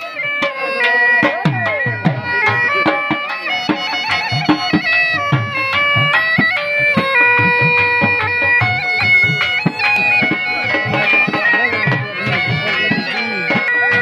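Bagpipe playing a folk melody over a steady, unbroken drone, with dhol drums beating along under it.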